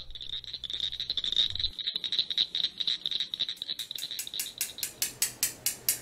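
Cricket frog calling: a fast run of high-pitched clicks, like marbles tapped together. About four seconds in, two glass marbles start clicking together in a quick, even rhythm, imitating the call.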